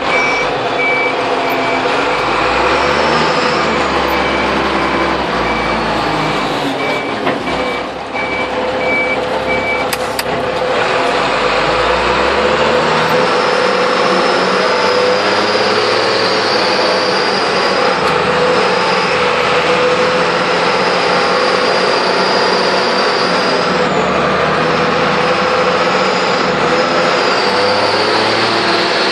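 Sisu TD1612 forklift running after a cold start, with a reversing beeper giving a row of regular short beeps for about the first ten seconds. The beeping then stops and the machine runs on a little louder as it drives, with a high whine that rises and falls.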